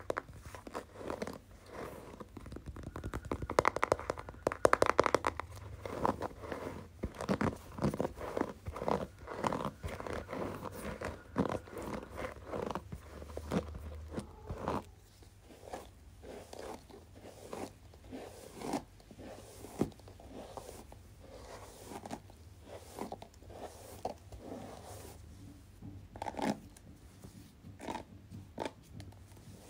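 Close-up crackling and rustling of hands and fingers rubbing and moving just in front of the microphone: a dense run of small clicks and scrapes, loudest a few seconds in and softer from about halfway.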